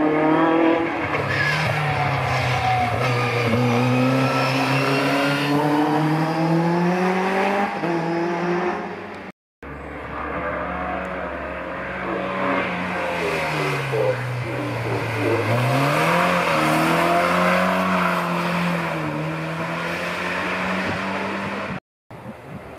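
Competition car engines running hard up a hillclimb course. The engine note climbs with the revs and drops back at each gear change, in two separate runs split by a cut.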